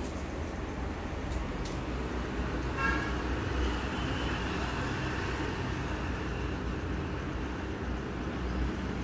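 Steady low rumble of road traffic, with a short vehicle horn toot about three seconds in.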